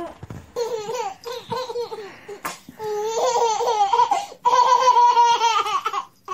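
A baby laughing in repeated high-pitched peals, loudest in the second half, with a sharp click about midway.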